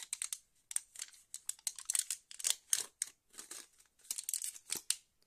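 Packaging crinkling and rustling in quick, irregular bursts as a small lipstick sample is handled and unwrapped.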